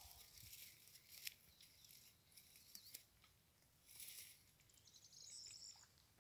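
Faint rustling and soft crunching in dry grass where goats are grazing close by, a few short bursts with light clicks between, and a brief high chirping near the end.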